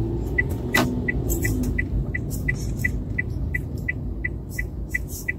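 Car turn-signal indicator ticking steadily, about three ticks a second, over the car's low engine and road rumble heard inside the cabin, with one sharper click under a second in.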